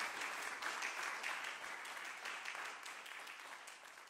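Audience applauding, fading out toward the end.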